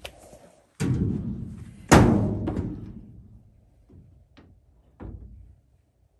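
Sheet-metal evaporator coil cabinet being set down onto the top of a gas furnace: two heavy metal thumps about a second apart, the second the loudest, each ringing out briefly. Two lighter knocks follow near the end.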